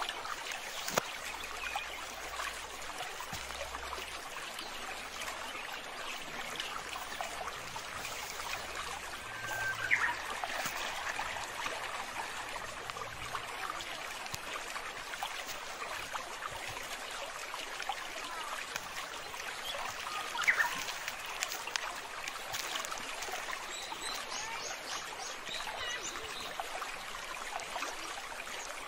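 Water trickling and flowing steadily, with a few short rising bird chirps about a third and two thirds of the way in, and faint small bird calls near the end.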